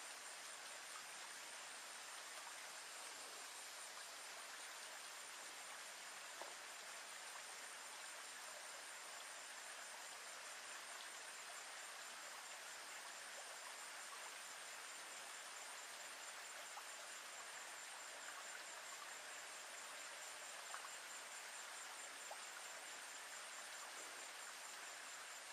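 Faint, steady high-pitched trilling of insects over a soft outdoor background hiss, with a few faint ticks.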